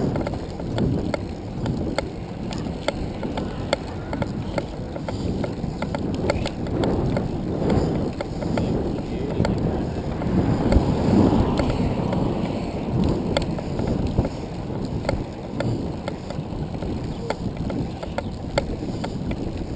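Wind rumbling on the microphone of a camera mounted on a moving handcycle, with road rumble and scattered sharp clicks and rattles from the machine.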